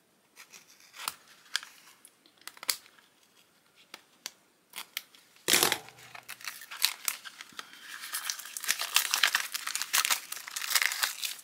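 A few sharp snips of scissors at the wrapping of a small cardboard box, then paper packaging torn open with a sudden rip about halfway through, followed by steady crinkling and rustling of the paper as it is pulled apart.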